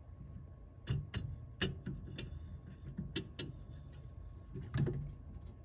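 A series of sharp plastic clicks and knocks, about seven in small clusters, as a rebuilt amplifier board and its wiring connectors are fitted back into a Sansui AU-717 chassis by hand.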